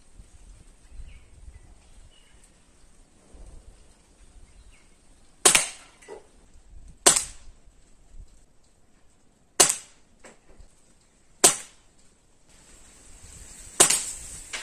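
Five sharp air rifle shots, 1.5 to 2.5 seconds apart, from a nitro-piston (gas ram) carbine. Fainter clicks follow some of the shots.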